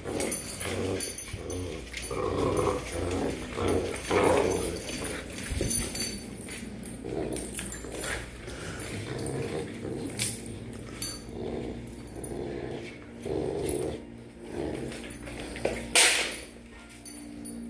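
Two pit bull puppies growling in play while tugging on a rope toy, with a few sharp clicks and knocks in between.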